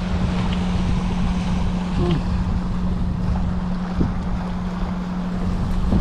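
Strong wind buffeting the microphone over small waves washing against a rocky shoreline, with a steady low hum underneath.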